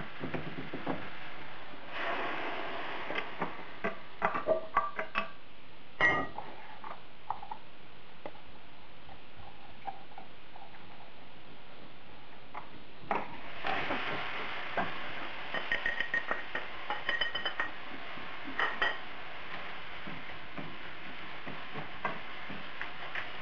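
Cookware clinking and knocking during wok cooking: chopsticks and a lid striking the pan in two clusters of sharp clicks, one a few seconds in and one past the middle.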